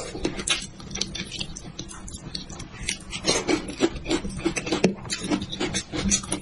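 Close-miked eating sounds: wet chewing and mouth smacking, with fingers tearing and picking meat off a spicy braised head. Irregular quick clicks and squelches that grow busier and louder about halfway through.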